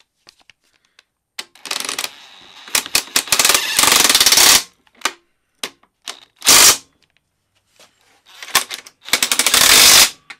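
Impact wrench hammering a bolt home in about five rapid bursts of blows. The longest burst lasts about two seconds, a little before the middle, and another long one comes near the end.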